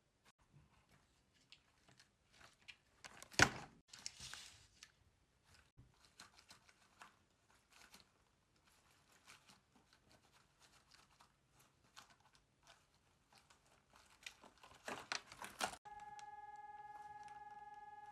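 Paper being handled: scattered small crinkles and rustles, with a sharp snap a few seconds in and a burst of crinkling near the end. Then a steady tone begins.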